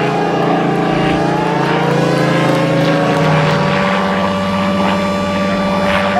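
Supermarine Spitfire's piston engine droning in flight, its pitch sliding slowly upward through the middle of the clip.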